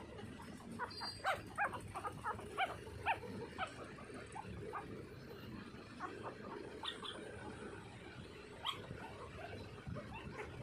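Eleven-day-old golden retriever puppies squeaking and whimpering: a quick run of short high squeaks in the first few seconds, then a few scattered ones later.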